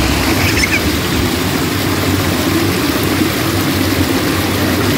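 Stream water rushing and splashing over a small rocky cascade, a steady loud rush.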